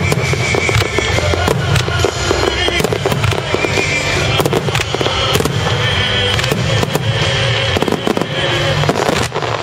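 A fireworks display at full intensity: many shell bursts and reports in quick succession over a continuous low rumble, with music playing along.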